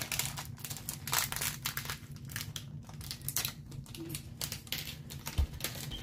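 Irregular crinkling and small clicks from bags of plastic building-block pieces being handled and opened.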